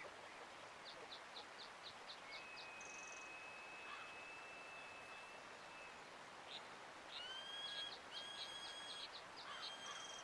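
Several songbirds calling over a faint, steady hiss of running water: a quick series of about eight high chips, then a long, steady whistle held for several seconds, then repeated whistled phrases in the second half.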